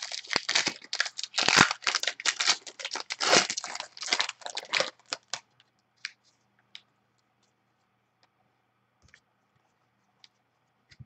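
Foil wrapper of a trading-card pack torn open and crinkled for about five seconds, stopping sharply. A few faint ticks of the cards being handled follow.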